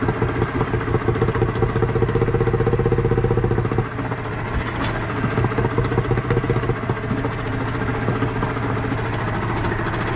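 Small two-stroke outboard motor, a 9.9 hp Yamaha, running steadily under load, pushing a heavily laden sailboat. Its note eases slightly and changes about four seconds in.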